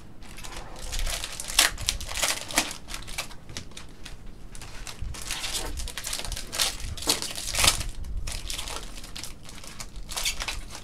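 Wrappers of Panini Contenders basketball card packs crinkling and crackling in irregular bursts as gloved hands open them and handle the cards.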